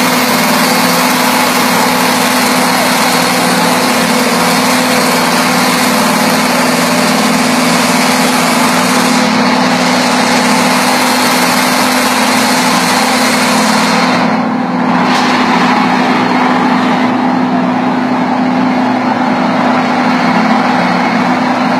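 Scania truck's diesel engine running steadily at a high, even speed, loud and close, with a brief dip about two-thirds of the way through.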